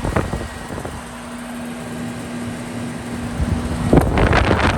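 Outdoor unit of a 2003 Lennox Elite heat pump running in heat mode: a steady machine hum from the compressor and fan, with one held tone. Near the end, louder gusty rushing noise comes in over it.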